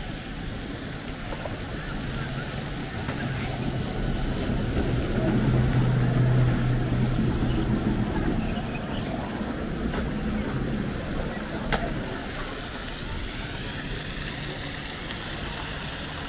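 A light-rail tram passing close by: a low hum that swells, is loudest about six seconds in, then fades, over street noise and people's voices. A single sharp click comes near the end.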